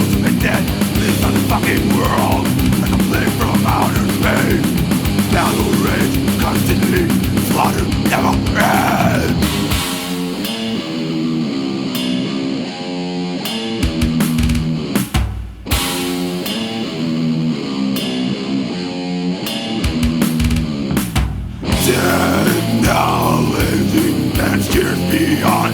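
Death metal playing: distorted guitars and pounding drums under growled vocals, dropping to a lone chugging guitar riff about ten seconds in, with two brief breaks, before the full band crashes back in near the end.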